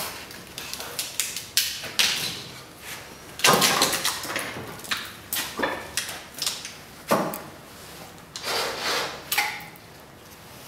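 Metal clunks and knocks as foil-wrapped knife blades are lifted from a heat-treating kiln with tongs and quenched between aluminium plates on a steel bench, the loudest knock about three and a half seconds in. Near the end comes a longer scrape.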